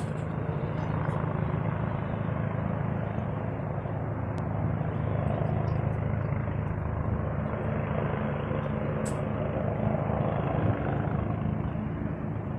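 Helicopter flying past overhead: a steady rotor and engine noise that holds throughout.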